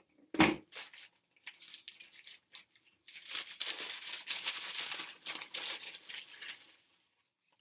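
A small wrapped package being torn and crinkled open by hand: a thump about half a second in, a few light clicks, then dense rustling through the middle that fades out near the end.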